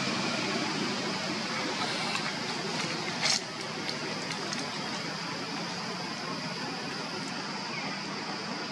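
Steady outdoor background noise with a faint low hum and a high hiss, broken once by a sharp click or snap about three seconds in.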